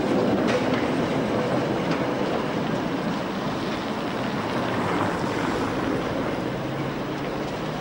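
Tatra T3 tram rolling along street track, its wheels rumbling on the rails and the sound fading as it moves away, with street traffic passing close by.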